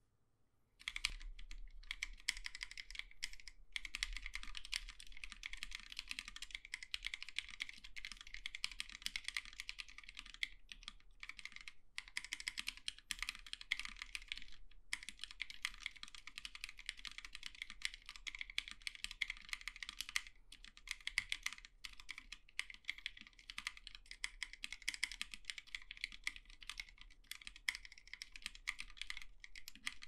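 Fast continuous typing on a Plaid 40% mechanical keyboard with Novelkeys Cream linear switches lubed with Krytox 205g0 and DSA-profile keycaps. Dense key clacks start about a second in, with a few brief pauses.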